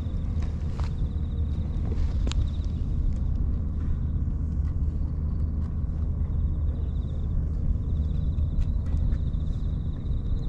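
Outdoor ambience dominated by a steady low rumble of wind on the microphone, with a faint high trilling in the background and a sharp click about two seconds in.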